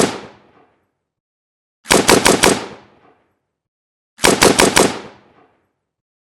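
AK-47 assault rifle firing short automatic bursts of four or five rounds, two full bursts about two seconds apart, each trailing off in a fading echo. The tail of an earlier burst dies away at the very start.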